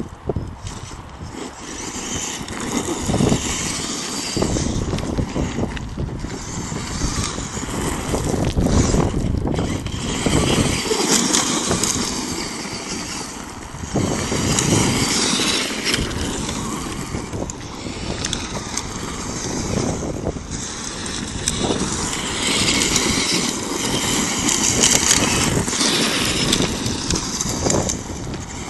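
Wind buffeting the microphone in gusts, over the electric motors of a Traxxas E-Maxx monster truck whining and its tyres running on gravel as it drives.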